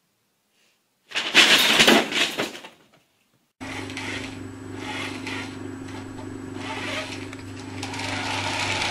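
Paper bag crinkling for about a second and a half as a cat pushes into it. After a short gap, a steady whirring hum with hiss, from a small battery-powered toy car running.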